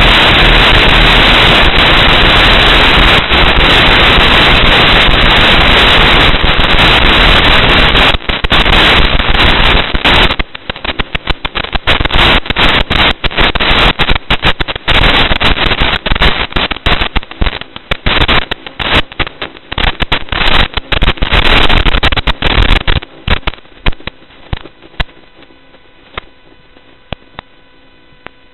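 Loud static hiss on the audio channel of an analog FPV video receiver while the quadcopter's video link is lost. About ten seconds in it breaks into crackling pops as the signal returns, then settles to a faint hum with a few steady tones over the last few seconds.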